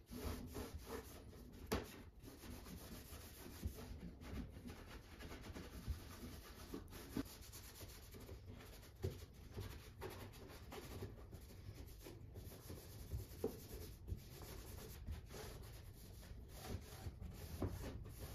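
Faint rubbing of a hand over the wooden slats of a lounge chair, with a few light knocks of wood scattered through.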